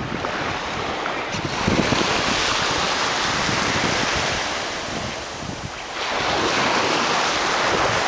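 Sea surf washing onto a beach, the wash swelling and easing, with wind buffeting the microphone. The wash eases briefly a little after halfway, then builds again.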